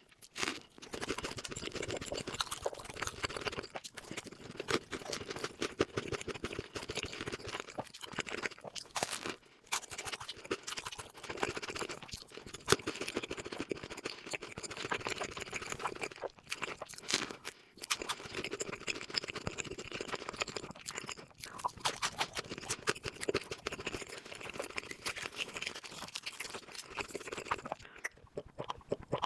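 Crunchy food being bitten and chewed, a dense, irregular crackling that keeps going with a few short pauses.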